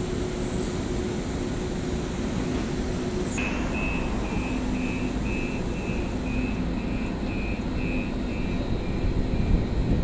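Siemens S200 light-rail car's door-closing warning beeping quickly, about three short high beeps a second for some six seconds, over the steady hum of the standing train. Near the end the sound grows louder as the train starts to pull away.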